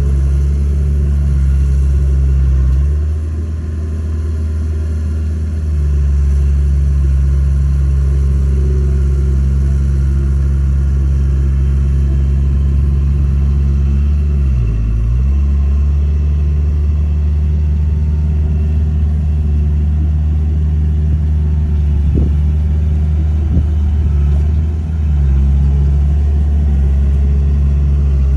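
Komatsu D31A bulldozer's diesel engine running steadily and loud, its note dropping for a few seconds about three seconds in, dipping briefly around the middle and shifting again near the end as the load changes.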